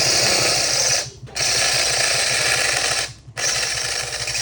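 Power drill drilling out the rivets of a motorcycle exhaust muffler's end cap, running in three spells with short pauses about a second in and about three seconds in.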